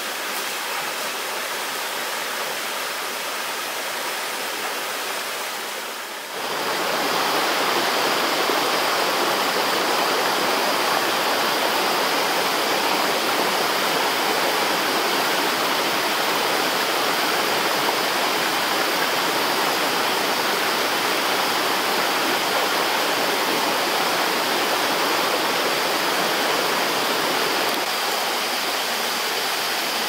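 Stream water running over rocks, a steady rushing that grows louder about six seconds in, with a thin steady high-pitched tone above it from then on.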